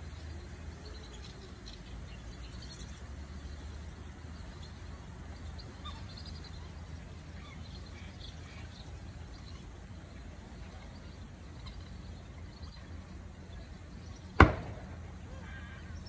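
Open-air background with a steady low rumble and faint, scattered chirps of distant birds. A single sharp click comes near the end, the loudest sound.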